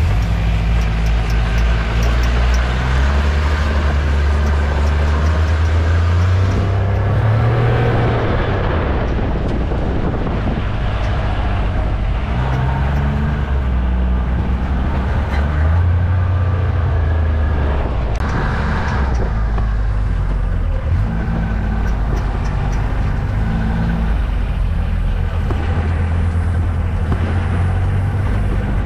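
Military side-by-side utility vehicle driving, its engine running loud throughout and rising and falling in pitch as the throttle changes.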